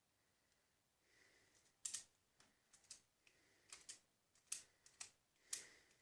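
Plastic Pyraminx puzzle being turned by hand during a solve: faint, irregular clacks of the pieces, about seven over the last four seconds.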